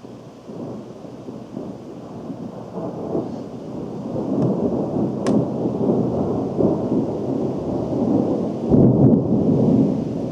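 Thunder from a lightning strike, rumbling. It begins suddenly and builds over several seconds to its loudest near the end.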